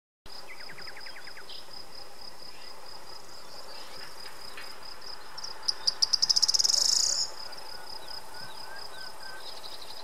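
An insect chirping steadily in a high, even pulse of several beats a second. A louder, faster run of pulses swells up a little past the middle and stops after about a second and a half.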